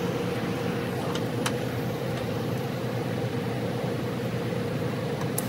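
Semi truck's diesel engine idling steadily, with a couple of faint clicks.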